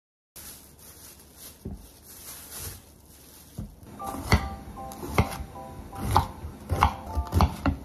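Chef's knife cutting green peppers on a wooden cutting board, the blade knocking sharply on the board about once a second from about four seconds in, over light background music.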